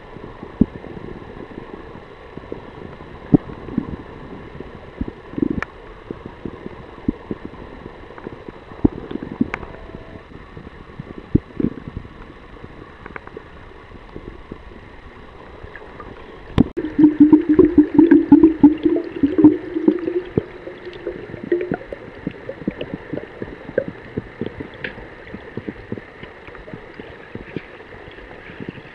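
River water heard through an underwater camera: muffled gurgling, with scattered clicks and knocks throughout. A louder, dense bubbling rattle lasts about five seconds past the middle.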